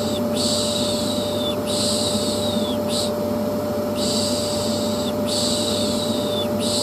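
Vacuum cleaner running with a steady hum, overlaid by a voice shushing 'shhh' over and over, each shush about a second long and trailing off, in groups of three with a short pause between groups: a white-noise lullaby for soothing a colicky baby to sleep.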